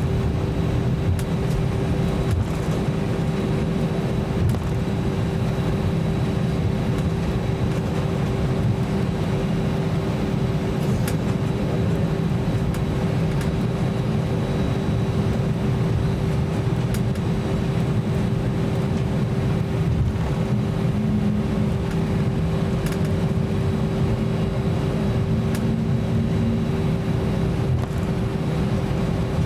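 Cabin noise of an Airbus A320-200 taxiing: a steady low rumble with a steady hum tone running through it, and a second fainter tone that comes in for a few seconds about two-thirds of the way through.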